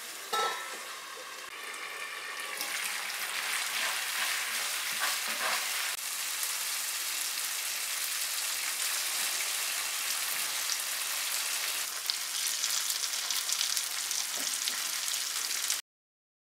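Masala gravy of tomato and tamarind sizzling in a frying pan, with a spatula stirring through it at first. The steady hiss gets louder a couple of seconds in and cuts off suddenly near the end.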